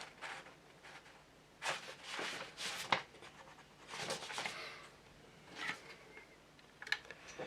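Faint, scattered rubbing and handling noises as small plastic model-kit parts are fitted by hand, with a sharp click about three seconds in.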